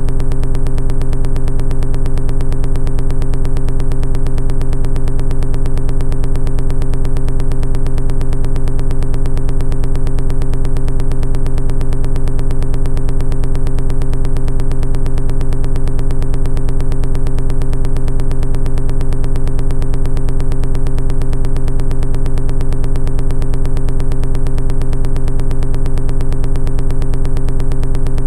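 Background music: a loud synthesizer drone that holds the same chord of steady tones without change.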